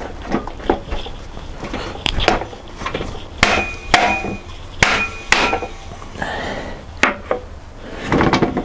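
Irregular sharp knocks and taps on pine workpieces, about eight of them, several leaving a brief metallic ring.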